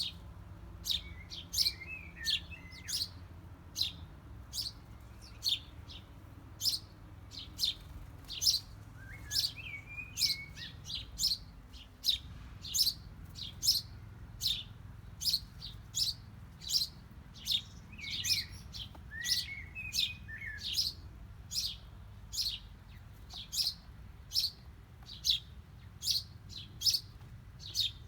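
Small songbirds chirping: one bird repeats a short, sharp chirp about twice a second, and a softer twittering call comes in a few times, about two seconds in, around ten seconds and around twenty seconds. A steady low rumble sits underneath.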